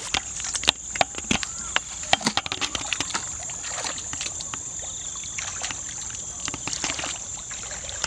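Hands splashing and sloshing in shallow, muddy paddy water while groping for fish, with a run of sharp knocks and splashes in the first few seconds that then settles into softer sloshing. A steady high-pitched buzz runs underneath.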